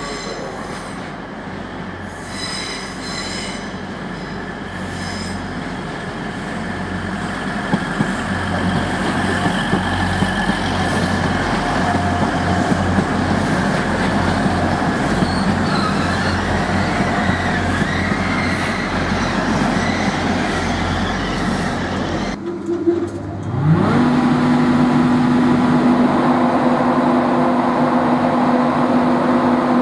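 Grand Central Class 180 diesel multiple unit running over the pointwork past the camera: underfloor diesel engines droning, wheels on the rails with high wheel squeal early on, the noise growing louder as the train comes by. About 22 seconds in, the sound switches to a Class 91 electric locomotive standing at the platform, with a hum that rises in pitch over about a second and then holds steady.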